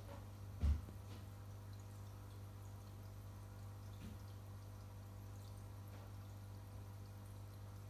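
Running saltwater aquarium: water trickling and dripping over a steady low hum from the tank's filter and air pump. A single dull thump about a second in is the loudest sound.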